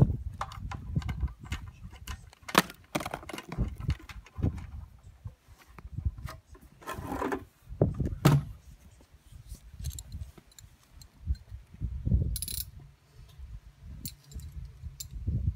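Irregular knocks, clicks and scrapes of a blue plastic drum and its wooden legs being handled and set upright, with a couple of louder knocks.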